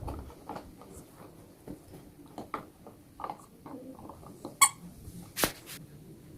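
Squeaky toy ball giving one short, high squeak a little past halfway, followed about a second later by a sharp knock, with light taps and scuffs in between.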